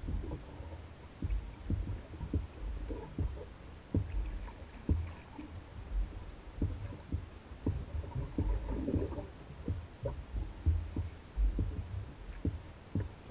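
Small waves slapping and knocking irregularly against the hull of an Old Town Guide 119 canoe as it bobs on the lake, over a low rumble.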